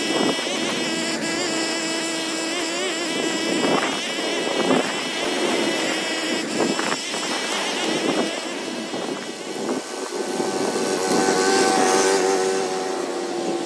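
Small gas engine of lawn equipment running steadily at high speed, its pitch wavering a little, with a somewhat different engine tone near the end.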